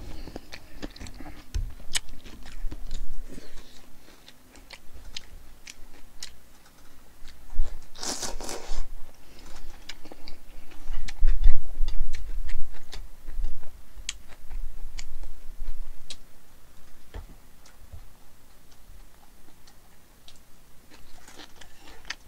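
Close-miked eating: chewing cold naengmyeon noodles and grilled beef, with metal chopsticks clicking sharply and repeatedly against the bowl and plate. A short slurp of noodles comes about eight seconds in, and the chewing is loudest a few seconds later.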